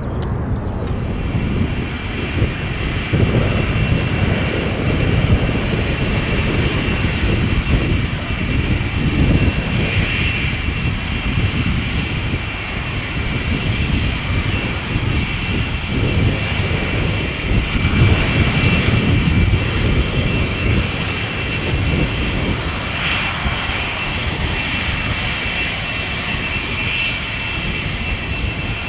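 Four-engine jet airliner, a Cargolux Boeing 747-400, taxiing close by: a steady high turbine whine over a low engine rumble that swells and eases a few times.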